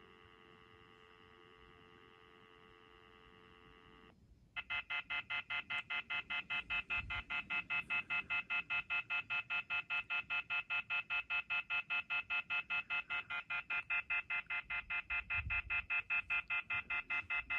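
Uniden 2.4 GHz cordless phone handset sounding a faint steady tone, then, after a brief break about four seconds in, the loud off-hook warning: a shrill multi-tone beeping about five times a second. This tone signals that the receiver has been left off the hook.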